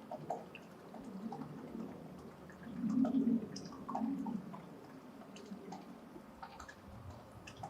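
Birds calling: a low call twice, about three and four seconds in, over scattered short, sharp chirps and ticks.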